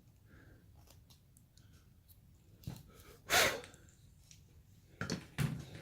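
Quiet clicks and scrapes of a carving knife cutting basswood, with a short, louder rush of noise a little over three seconds in and a few knocks near the end.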